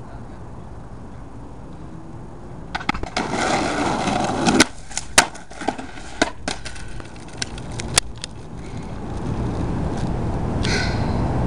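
Skateboard wheels rolling on asphalt, then a fall: the board and rider hit the pavement with several sharp clacks as the board bounces and clatters away.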